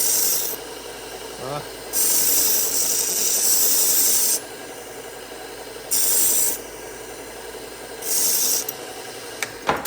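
1x30 belt sander with a 3M Cubitron 120-grit belt running steadily, with a knife blade pressed to the belt in four grinding passes: a short one at the start, a long one of a couple of seconds, then two short ones. Each pass is a loud, high-pitched hiss over the motor's hum, the steel being thinned behind the edge to raise a burr.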